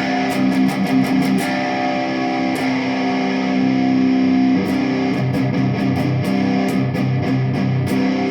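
Jackson Dinky electric guitar played with its tone knob fully open, a trial tone capacitor wired into the tone control: picked notes and chords ringing, with quick runs of pick attacks about a second in and again in the second half.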